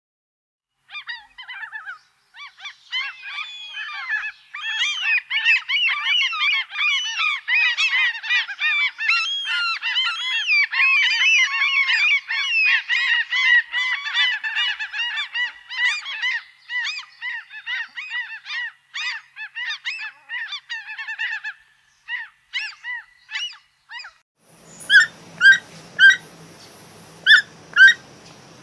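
A flock of geese honking, many calls overlapping in a dense chorus that thins out after about twenty seconds. Near the end it gives way to a few separate sharp bird calls over a steady hiss.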